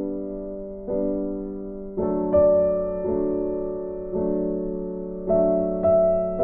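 Background music: slow, soft keyboard chords, a new chord struck about once a second and left to fade.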